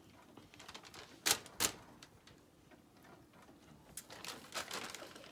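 Brown paper bag crinkling as a hand rummages inside it, with two sharp crackles a little over a second in and a run of crisp crackles near the end.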